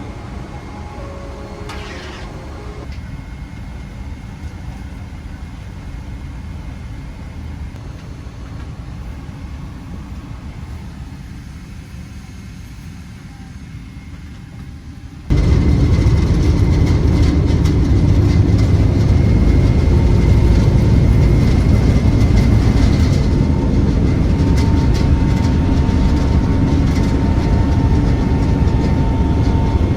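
Steady low rumble of a Boeing 777-300ER cabin, heard from inside the aircraft. About halfway through it jumps suddenly to a much louder rumble that holds steady.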